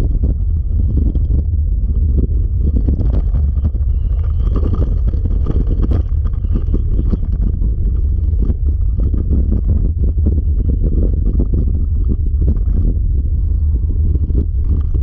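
Steady low rumble of wind buffeting the microphone while moving, with a constant rattle of small knocks.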